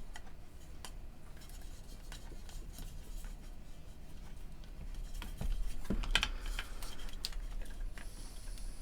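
Small handling sounds of wires and tools being worked inside a headphone earcup: faint scattered clicks, with a few sharper clicks and taps about five to seven seconds in, over a low steady hum.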